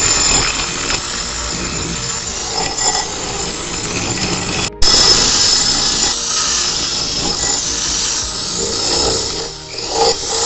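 Wire cup brush on a power tool spinning against a rusty steel axe head, scouring off rust with a steady rasping hiss. The sound cuts out for an instant near the middle and comes back louder.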